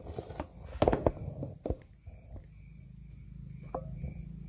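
Several sharp clicks and knocks in the first two seconds as the oil filter is worked into its plastic housing in the engine bay. Then night insects chirping: a steady high buzz with a short chirp about twice a second, over a low hum.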